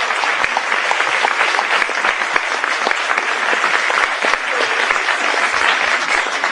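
Audience applauding: dense, steady clapping that holds even throughout.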